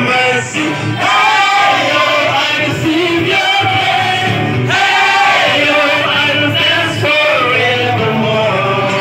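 A crowd singing together over loud music, many voices in unison.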